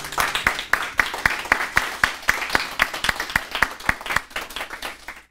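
Audience applauding with dense, irregular hand claps that thin out and stop near the end.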